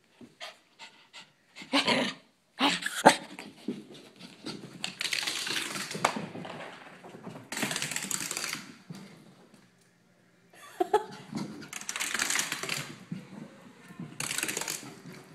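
A miniature pinscher dashing around on carpet, panting, with rushing paw-falls and scuffling in stretches of a second or two separated by short pauses.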